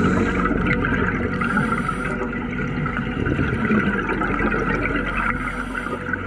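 Underwater scuba sound: a diver's exhaled air bubbles gurgling and rushing past the camera.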